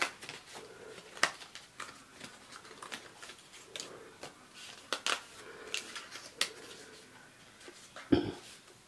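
Die-cut cardstock pieces being popped and peeled out of their sheet by hand: scattered light paper clicks and rustles, with a duller thump about eight seconds in.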